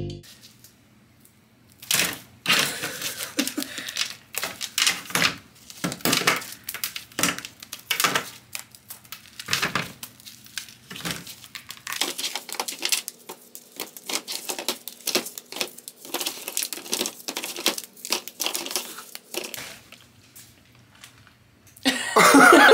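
Chocolate pretzel bark being broken apart by hand on a parchment-lined sheet pan: irregular snaps and cracks of the set candy coating, with crunching pretzels and crinkling parchment. It starts about two seconds in and stops a couple of seconds before the end.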